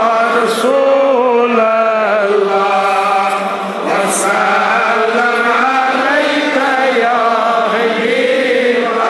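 Darood, Islamic salutations on the Prophet Muhammad, chanted aloud in a slow, unbroken melodic recitation.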